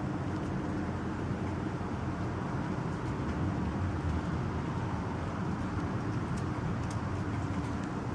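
Steady low outdoor rumble with a few faint ticks above it.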